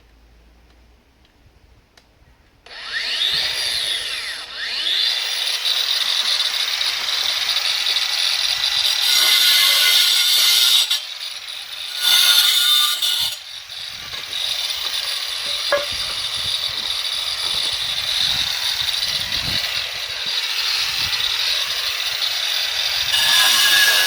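Makita GA023G 40 V brushless cordless angle grinder spinning up with a rising whine about three seconds in, dipping briefly and spinning up again, then grinding steadily into masonry with a harsh, loud cutting noise that swells and briefly drops several times as the disc bites in.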